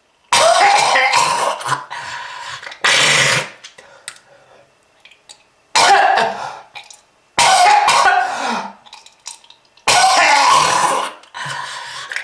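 A person coughing hard and harshly in about six fits with short pauses between, mixed with throat clearing. It is given as the cough of a heavy smoker.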